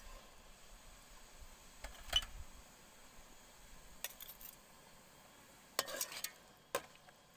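A ladle stirring fish pieces in broth in an aluminium pot, clinking against the pot a few times. The sharpest clink comes about two seconds in, with a quick cluster near the end.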